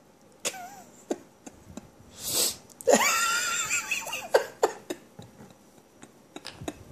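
A drawn-out vocal sound about three seconds in, rising at the start and then held for about a second, after a short puff of breath and followed by a few light clicks and knocks.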